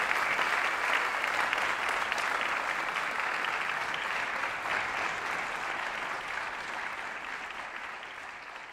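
Audience applauding, a dense steady clapping that gradually fades away.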